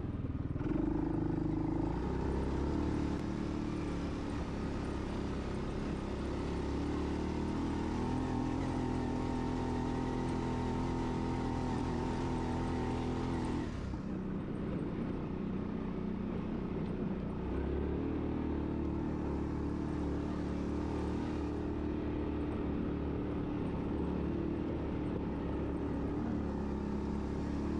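ATV engine running at a low, fairly steady speed as the quad rides over a dirt trail. The sound changes abruptly about halfway through.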